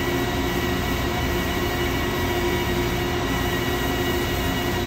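Handheld belt sander running an emery belt wrapped around a steel crosshead pin, a steady grinding whine with several held tones, as it polishes scratches out of the pin. It stops abruptly at the end.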